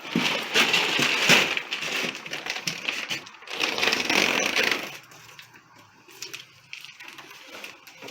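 Rustling and crunching as a bag of feed is grabbed and carried, dense for about five seconds, then dropping to faint scattered clicks.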